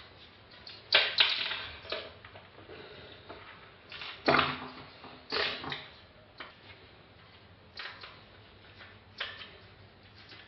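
A screwdriver working at a CPU cooler, a finned metal heatsink with a plastic fan frame, as it is taken apart: irregular small clicks and knocks, about a dozen in all, the loudest about one second and about four seconds in.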